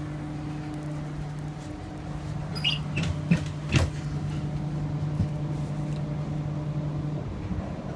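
Queensland Rail IMU electric multiple unit heard from inside the carriage while running: a steady low hum over rail noise. A few sharp clicks and knocks come about three seconds in, the loudest just before the halfway point, and the lower hum tone drops away about seven seconds in.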